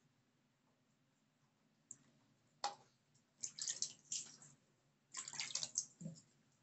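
Water splashing as a hand scoops water from a basin and sloshes it over a wet puppy during a bath: a sharp splash about two and a half seconds in, then two bouts of short splashes.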